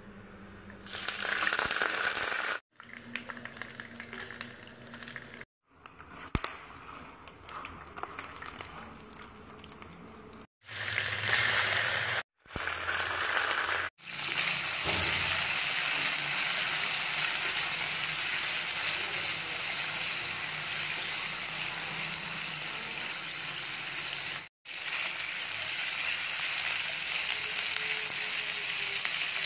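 Whole spices and curry leaves sputtering in hot oil in a pan, in short clips broken by abrupt cuts. From about halfway, marinated mutton pieces frying in the oil with a steady, louder sizzle as they are stirred and roasted.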